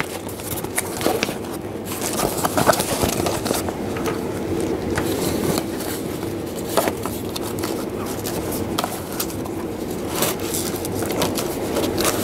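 Handling noise: scraping and light clicks of a battery and charger leads being moved about.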